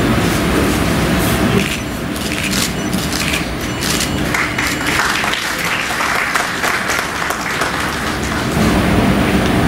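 An audience clapping, building about two seconds in and continuing for several seconds as a dense patter of many hands.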